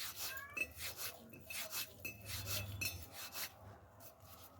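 Floured hands rolling and rubbing rice-flour dough between the fingers to pinch off small chushi pitha pieces. It is a soft rubbing that repeats about two or three times a second.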